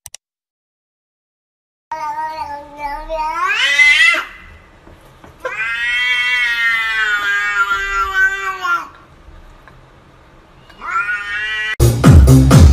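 A cat meowing in three long, drawn-out yowls: the first climbs in pitch, the second is held and then sinks at its end, and the third is short and rising. Electronic dance music cuts in abruptly near the end.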